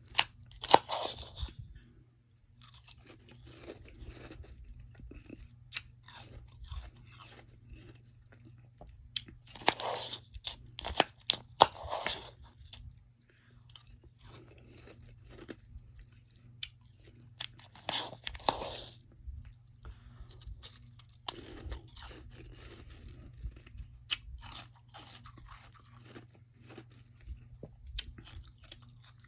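A person biting and chewing soft, fluffy freezer frost close to the microphone: bursts of loud crunching come in three clusters, with softer wet chewing between them.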